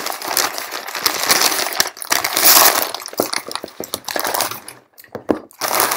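Clear plastic shrink wrap being pulled off a cardboard game box and crumpled by hand: a dense, crackling crinkle. It stops briefly just before five seconds in, then crinkles again.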